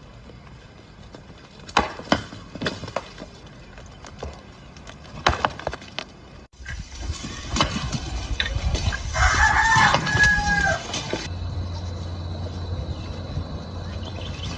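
A rooster crows once, a drawn-out call about nine seconds in. It follows a few scattered sharp knocks over a noisy background.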